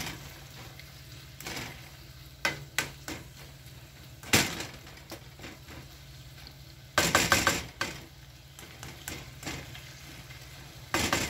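Diced bacon, tomato and onion sizzling quietly in a nonstick frying pan while a spatula stirs them, scraping and knocking against the pan in separate strokes, with a quick run of strokes about seven seconds in.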